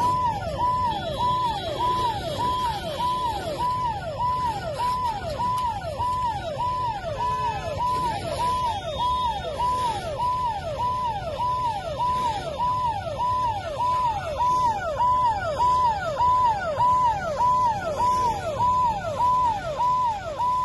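Emergency vehicle siren sounding continuously in a fast repeating cycle, nearly two a second: each sweep rises quickly, holds briefly, then falls away. A low rumble runs under it.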